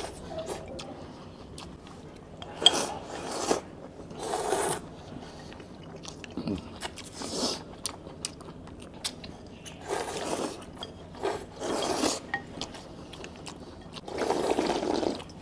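A person eating noodles in big mouthfuls: several noisy slurps of about half a second to a second each, a few seconds apart, with chewing between them.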